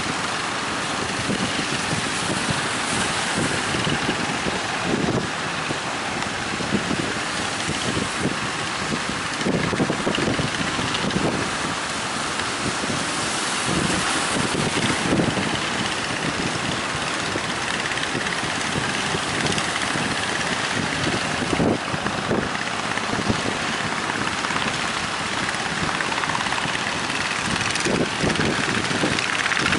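Strong wind buffeting the microphone in irregular gusts, with a boat engine running steadily underneath.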